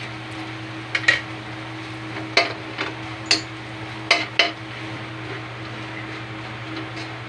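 Metal spatula scraping and clinking against an aluminium wok as minced garlic is stirred and sautéed in a little oil, with a light sizzle underneath. About seven sharp clinks come unevenly through the first half, then only the scraping and sizzle.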